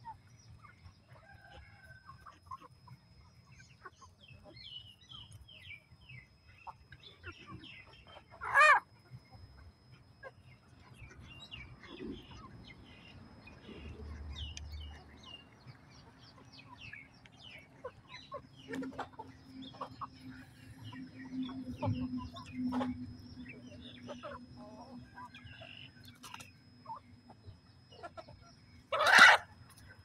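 Flock of chickens clucking with many short calls, and two much louder calls, one about nine seconds in and one just before the end.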